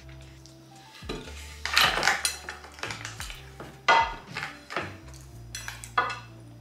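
Eating sounds of a crisp, batter-fried Korean corn dog on a skewer: three loud crunching, clattering bursts about two seconds apart, over soft background music.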